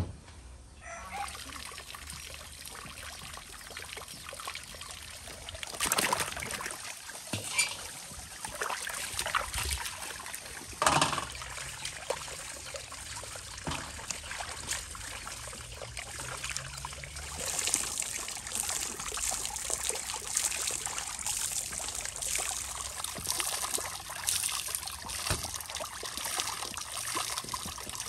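Water trickling and splashing in a stone basin as peppers and tomatoes are washed by hand, with a couple of louder splashes along the way.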